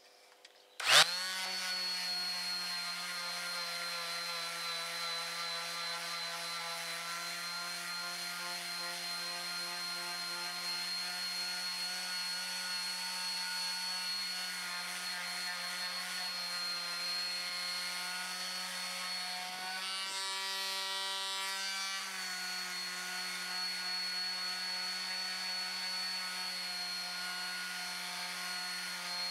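Electric detail (mouse) sander switched on about a second in and running steadily, its triangular sanding pad buzzing against a wooden board. The pitch rises slightly for a couple of seconds around twenty seconds in.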